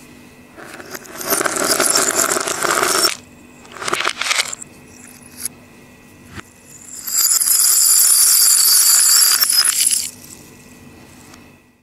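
Plastic dice clattering into a bowl for about two seconds, then a short clatter, then a pile of small metal jingle bells jingling and clinking for about three seconds, the loudest part. The sound runs backwards, so each clatter swells up and cuts off sharply.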